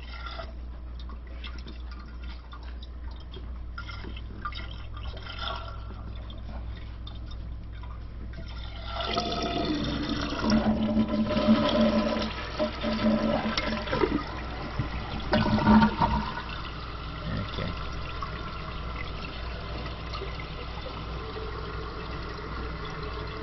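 Light clicks of handling for several seconds. About nine seconds in, a toilet flushes with a sudden rush of water, which settles into the steady hiss of the tank refilling.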